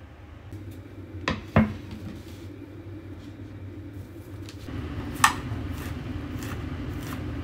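Household objects being handled on a hard surface: two quick knocks about a second in, then a sharp clink with a brief ring about five seconds in, with a few lighter ticks, over a steady low hum.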